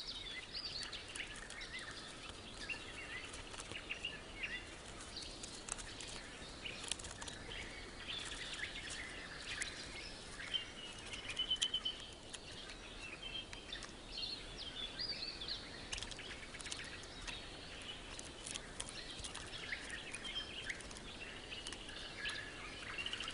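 Low-level forest ambience: scattered high bird chirps and calls, with faint clicks and taps throughout and a quick run of louder taps about halfway through.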